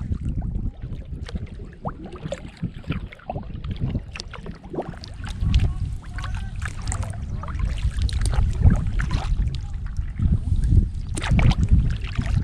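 Kayak paddle strokes splashing and dripping in the water in an irregular patter, over a low rumble of wind buffeting the microphone.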